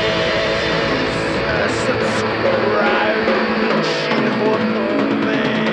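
Rock music with guitar and drums.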